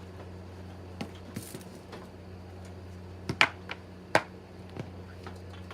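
Scattered clicks and knocks of kitchen items being handled, two sharper knocks about three and four seconds in, over a steady low hum.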